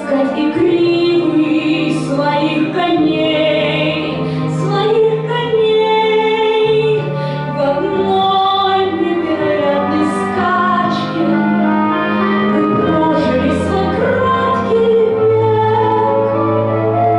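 A woman singing a song with vibrato on long held notes, over instrumental accompaniment.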